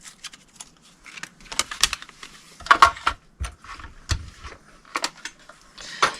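Irregular clicks and light clatter of cutting plates and a die being handled at a mini die-cutting machine.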